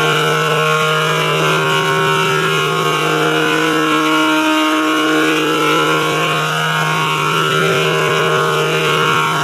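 A steady electronic drone of several held tones sounding together, with no change in pitch or loudness.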